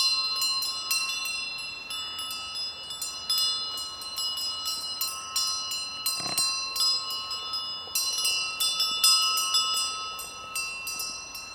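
Bells worn by grazing sheep clanking irregularly, several bells of different pitches ringing over one another.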